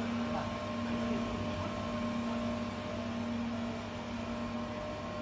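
Automatic pipe-elbow welding machine welding a steel elbow seam: a steady electrical hum with a held droning tone.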